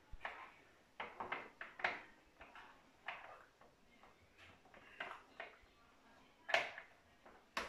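Metal spoon scraping and knocking inside a small box of paprika as it is dug out: an irregular run of light clicks and scrapes, the two loudest near the end.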